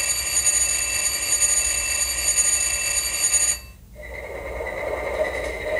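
Model diesel locomotive sound decoder playing its start-up sequence through the locomotive's small speaker. A steady high-pitched tone made of several pitches holds until about three and a half seconds in and cuts off; after a brief pause the simulated diesel engine starts, growing louder toward the end.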